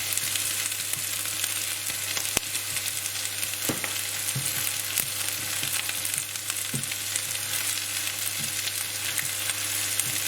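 Onions sizzling steadily in hot oil in a pan, with a few sharp crackles scattered through.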